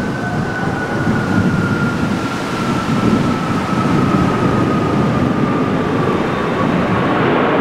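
Boeing 777-300ER's GE90 jet engines on a landing arrival: a loud rumble with a high whine above it that slowly falls in pitch while the rumble grows louder.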